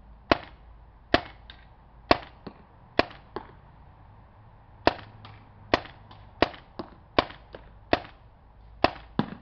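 Tippmann 98 Custom semi-automatic paintball marker firing single shots, about ten sharp pops a second or less apart with a short pause partway through. Most shots are followed by a fainter click.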